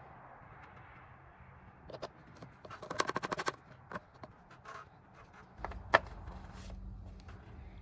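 A long plastic oil funnel being handled in an engine's oil filler neck: a quick rattle of clicks about three seconds in, a few lighter knocks, and a sharp click near six seconds, over a faint steady hiss.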